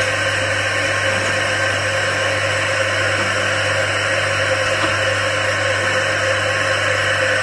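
Automatic air-blowing bottle rinsing machine running: a steady hiss of blown air with a constant low hum underneath.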